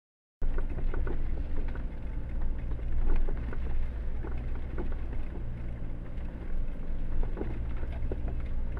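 Jeep engine running at low speed on an off-road track, with frequent knocks and rattles from the vehicle jolting over ruts. The sound cuts in suddenly about half a second in.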